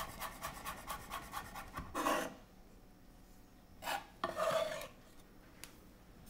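Chef's knife rapidly chopping chives on a wooden chopping board, a quick run of taps for about two seconds. A few short scrapes follow as the blade gathers the chopped chives across the board.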